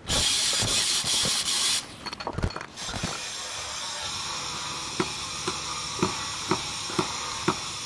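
A loud hiss that cuts off abruptly about two seconds in, then a steady quieter hiss with footsteps on asphalt shingles, about two a second, in the last few seconds.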